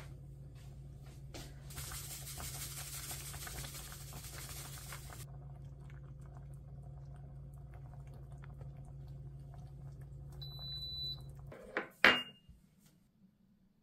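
A hotpot simmering on an induction cooktop: a steady low hum, with a hissing haze from about two seconds in that lasts about three seconds, and a short high beep near the end. Then two sharp knocks close together as a small ceramic sauce pitcher is set down on a cloth-covered stone counter.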